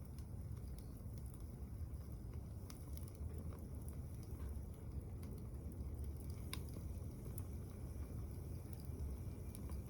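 Wood fire burning in a small secondary-combustion wood stove: scattered faint crackles and pops of burning wood over a steady low rumble.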